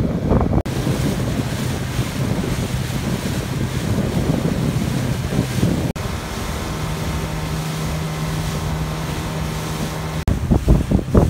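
A small fishing boat's engine running steadily under way, with the wake rushing and wind buffeting the microphone. The sound cuts briefly twice, and the engine hum is a little higher after the second cut.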